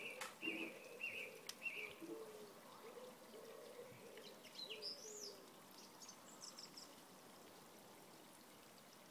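Faint garden birdsong: a run of short chirps in the first two seconds, then a rising and falling whistle about five seconds in and a few high notes after it, with a few light clicks near the start.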